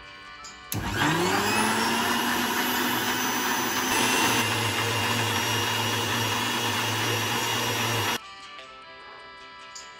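Electric countertop blender switched on about a second in, its motor whine rising as it spins up, then running steadily as it blends pancake batter before cutting off suddenly near the end. Background music plays faintly underneath.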